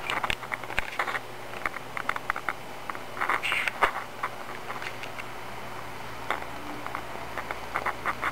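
A cat chewing and tugging at a crocheted yarn blanket: irregular runs of small clicks and rustles from its teeth working the yarn, over a steady low hum.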